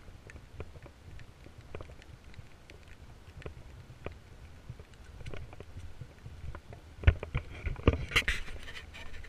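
Footsteps of a walker on wet grass and leaf litter over a steady low rumble. The steps are faint and scattered at first, then a louder run of crunchy steps starts about seven seconds in.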